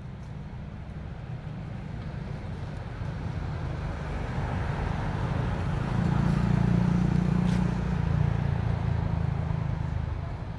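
A motor vehicle's engine hum with road noise, growing louder from about four seconds in, loudest a couple of seconds later, then easing off: a vehicle driving past.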